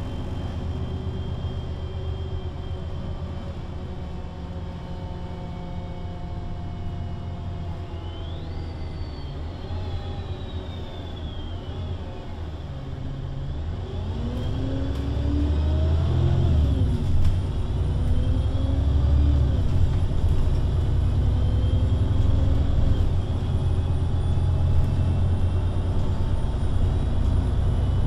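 VDL Citea LLE 120 city bus engine and Voith automatic driveline heard from inside the passenger cabin. It runs at a moderate, steady level with a high whine that rises and then falls. About halfway through it grows much louder as the bus accelerates, the engine note climbing and dropping back several times as the gearbox shifts.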